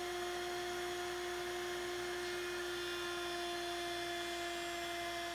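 Table-mounted router running at a steady speed with a constant whine, as a 3/8-inch radius roundover bit rounds over the edge of a solid mahogany frame fed along the fence.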